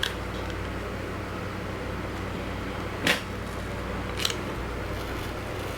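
Plastic screen-protector film being slowly peeled off a tablet screen, giving two short rasps about three and four seconds in, over a steady low hum.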